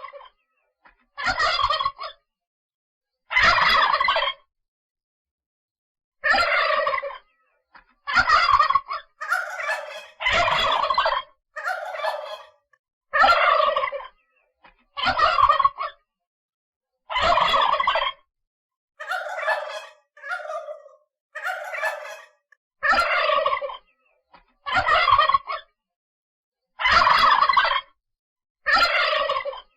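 Turkey gobbling: a string of rapid, rattling gobbles, each about a second long, repeated every one to two seconds with silent gaps between them.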